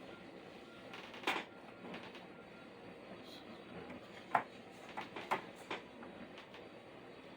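Scattered light clicks and taps of small metal soldering tools against a circuit board, about five in all, the sharpest a little past the middle, over a steady faint hiss.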